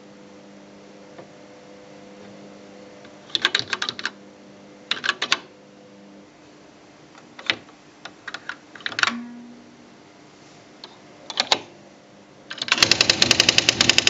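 Smith Corona SD685 electronic typewriter: keys pressed in short bursts of clicks, then near the end a rapid, even run of loud strikes as the print wheel prints a line.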